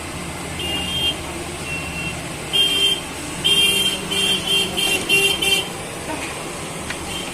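Vehicle horns honking over a steady street-traffic rumble: a few short toots, then a quick run of about five honks.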